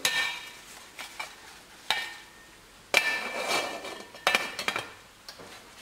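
Aluminium lid clanking onto an aluminium steamer pot, about four metallic knocks that each ring briefly, the loudest about three seconds in.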